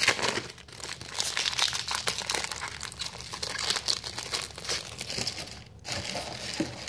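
Foil wrapper of a trading-card pack being torn open and crinkled in the hands, a dense crackling that dies down near the end as the cards come out.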